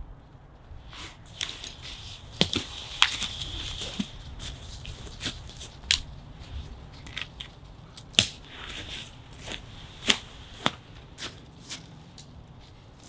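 Irregular sharp crunches, snaps and rustles: footsteps in crusty snow and nylon hammock fabric and straps being pulled and handled as the hammock is hung between two trees.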